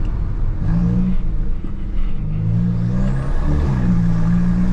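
Volkswagen Jetta TSI's turbocharged 2.0 four-cylinder engine, Stage 2 tuned with a downpipe, pulling under acceleration. The engine note comes in stretches, rising gently in the middle and holding steady near the end.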